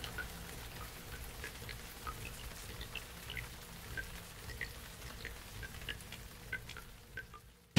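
Faint, irregular small ticks, a few each second, over a low hum. The sound fades away near the end.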